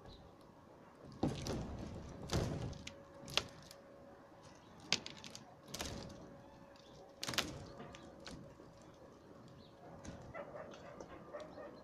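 Thumps and crackles of someone stepping on and handling boards on a canopy of old roofing sheets, about six loud knocks spread over several seconds. Near the end comes a faint quick rhythmic ticking.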